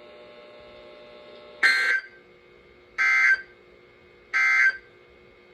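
Emergency Alert System end-of-message data burst sent three times: three short, identical screechy digital chirps about a second and a half apart. They mark the end of the severe thunderstorm warning broadcast. A faint steady hum lies underneath.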